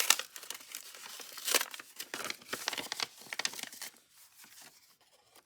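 An old paper envelope being handled, crinkling and rustling in a run of quick crackles, loudest at the start and again about a second and a half in, dying away after about four seconds.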